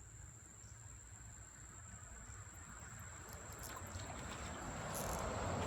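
A steady high-pitched insect drone, with the rush of stream water growing louder through the second half.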